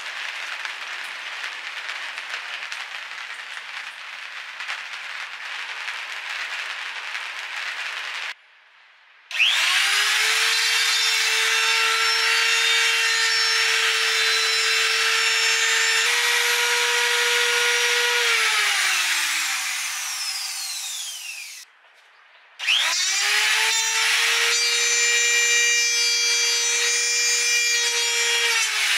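Trim router cutting hinge recesses into a Douglas fir laminated board, started twice: each time its motor whine rises quickly to a steady pitch, runs with the rasp of the bit in the wood, then falls away as it is switched off. Before the first start there are several seconds of even, rasping noise.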